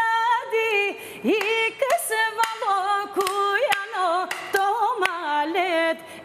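A woman singing an Albanian folk song solo, unaccompanied. She holds long notes decorated with quick ornamental turns and slides, with a few brief pauses between phrases.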